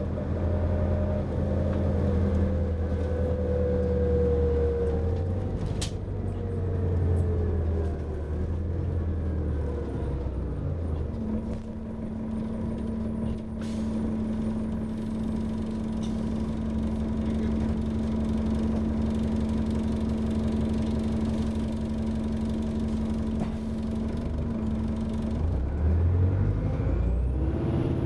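Detroit Diesel Series 50 engine and Allison transmission of a 1999 New Flyer D40LF bus, heard from on board: the engine and drivetrain tones fall as the bus slows, the engine idles steadily at the stop for about fifteen seconds, then the pitch rises as it pulls away near the end.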